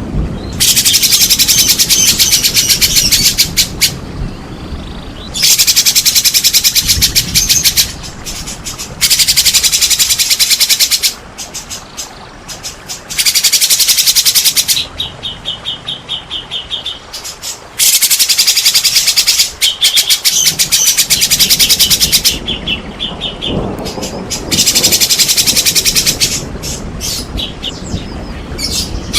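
White-rumped shama (murai batu) singing in loud bursts of very rapid, high repeated notes, each burst two to three seconds long, about seven times with short pauses between.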